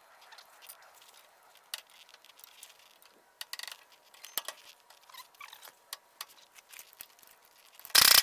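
Light metallic clicks and taps from bolts, washers and a steel steering box brace being handled and fitted to a truck's frame. Near the end there is a short, loud burst of noise as a hand tool goes onto a bolt.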